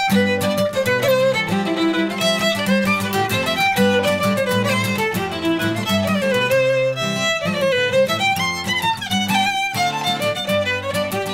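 Fiddle playing a lively jig, with a strummed steel-string acoustic guitar as accompaniment.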